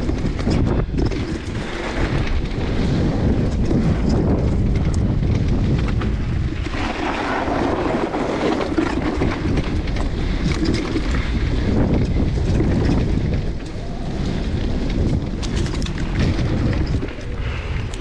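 Mountain bike riding fast down a dry dirt singletrack: wind rushing over the action camera's microphone, tyres rolling on dirt, and the bike rattling and knocking over bumps.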